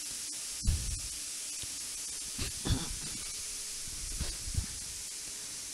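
Steady high hiss of a narration microphone's noise floor, with a faint click about half a second in and a few soft low thumps.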